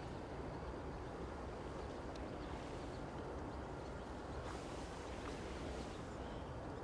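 Steady lakeshore outdoor ambience: a low, even rumble of wind and water, with a few faint short ticks or chirps.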